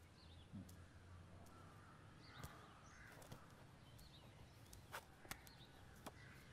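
Near silence: faint room ambience with a few soft clicks and faint bird-like chirps.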